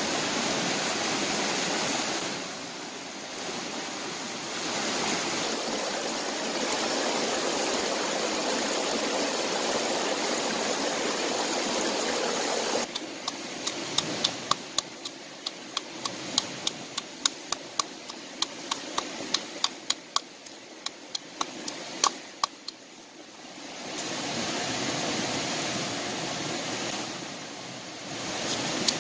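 Rushing stream water running over rocks. About thirteen seconds in it gives way to a stone pestle pounding red chillies and garlic in a coconut-shell mortar: quick, sharp, irregular knocks, several a second, with the water fainter behind. The rushing water comes back for a few seconds, then the knocking starts again near the end.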